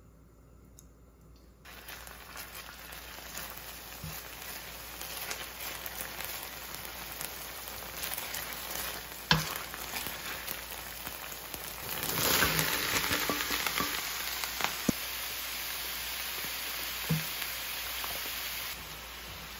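Minced aromatics sizzling in hot oil in a stainless steel skillet, starting about two seconds in and building as a spatula stirs them, with one sharp tap about nine seconds in. About twelve seconds in the sizzle suddenly gets louder as chopped bok choy and mushrooms go into the pan, then settles into steady frying.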